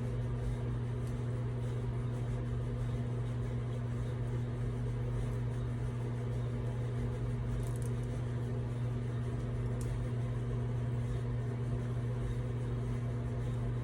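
Steady low machine hum, unchanging throughout, with two faint clicks about eight and ten seconds in.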